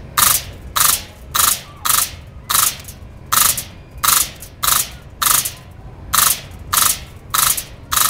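An automatic BB gun firing in short bursts, each a quick hissing rattle of shots, repeated about every half second.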